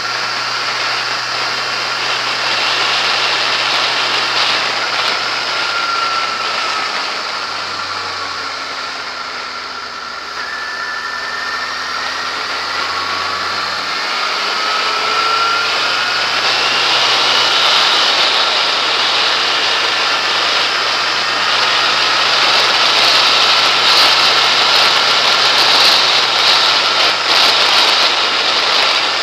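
A Yamaha XJ6S's inline-four engine running as the motorcycle rides along, under heavy wind rush over a bike-mounted camera. The engine note drops for a few seconds about a quarter of the way in, then rises again as the bike picks up speed, and the wind noise is loudest near the end.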